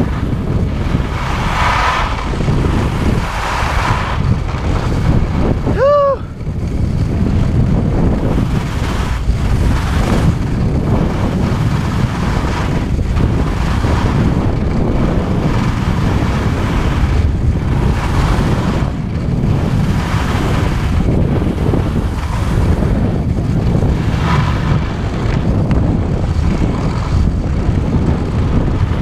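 Wind rushing over the microphone of a camera on a skier going downhill, with the hiss and scrape of skis running over snow. A short pitched sound, perhaps a call or a squeak, cuts through about six seconds in.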